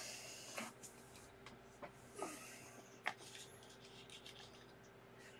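Faint rustling and scratching with a few sharp clicks, over a steady low hum.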